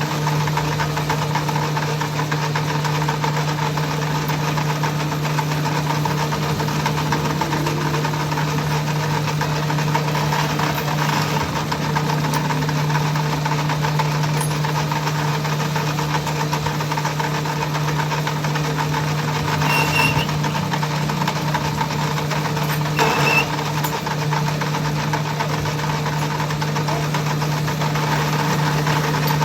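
A machine running steadily with a constant hum that does not rise or fall. There are a couple of brief sharp clicks about twenty and twenty-three seconds in.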